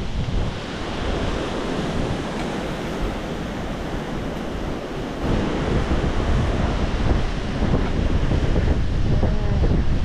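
Strong wind buffeting the microphone: a steady rushing roar with heavy low rumble, growing louder about halfway through.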